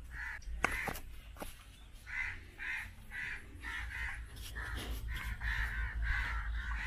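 Crows cawing over and over, a run of calls about two a second that starts about two seconds in. A few short knocks come before it.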